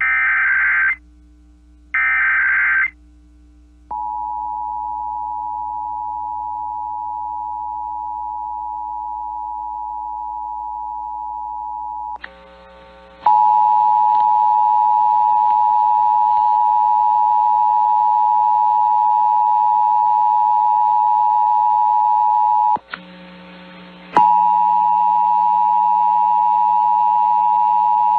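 Emergency Alert System monthly test: the last two bursts of the digital SAME header, each a warbling data screech about a second long, then the steady two-tone EAS attention signal. The attention tone breaks briefly and comes back louder with hiss a little before halfway, drops out for about a second some five seconds before the end, and then resumes.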